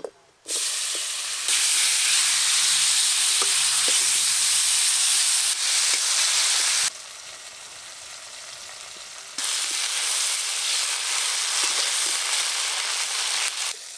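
Pieces of salted hilsa fish sizzling steadily as they fry in hot oil in a metal wok, with light clicks of a spatula turning them. The sizzle drops quieter about halfway through and comes back louder a couple of seconds later.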